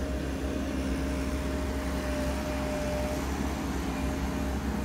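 XCMG XE135B hydraulic excavator running steadily as it works: a constant low engine drone with a faint whine that fades about three seconds in.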